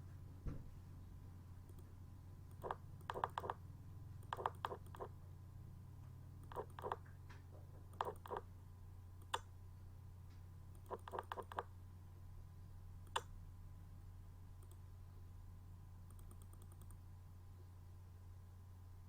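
Faint light clicks in short irregular clusters of three to five, stopping about two-thirds of the way through, over a steady low hum.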